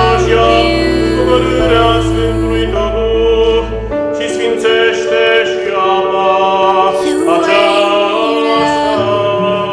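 Background music: a slow song, a voice singing over sustained chords, with a held bass that drops out about four seconds in and comes back near the end.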